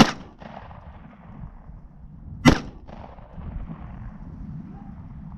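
Two pistol shots from a Glock handgun, about two and a half seconds apart, each a single sharp crack with a short tail, over light wind noise.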